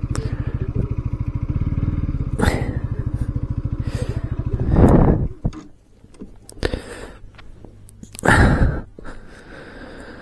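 Bajaj Pulsar NS200's single-cylinder engine idling with a rapid, even pulse, then stopping about five seconds in. A few short knocks and rustles follow.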